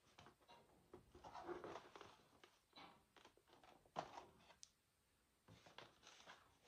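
Faint, irregular chewing and wet mouth sounds of a person eating, with a sharp click about four seconds in.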